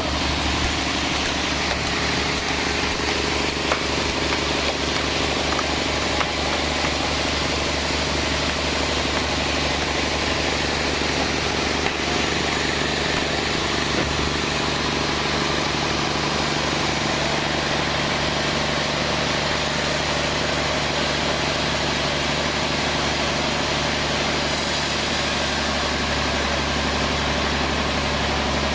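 Band sawmill running steadily, a constant machine hum with no pauses or changes in level.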